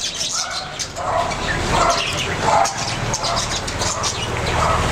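Birds calling over and over, short rough calls about every three-quarters of a second, over a steady low background hum.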